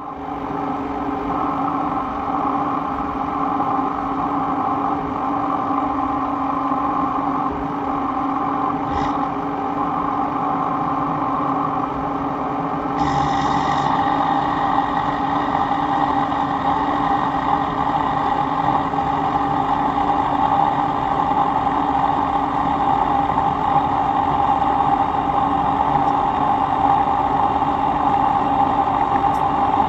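Kearney & Trecker milling machine running steadily, a machine whine with several steady tones. About a third of the way in it grows louder and brighter and stays so.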